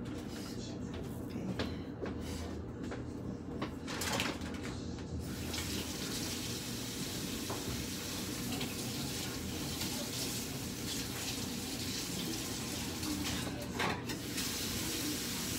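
Kitchen faucet running water into the sink, a steady hiss that starts about five seconds in. Before it come scattered knocks and clinks of things being handled at the sink.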